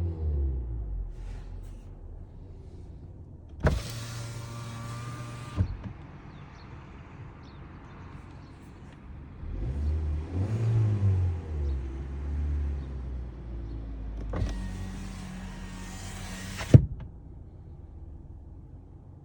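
2025 Kia K4's engine idling, with a brief rev about ten seconds in. A power window motor runs twice for about two seconds each, with a click as it starts and stops; the second run ends in a sharp thunk as the glass seats.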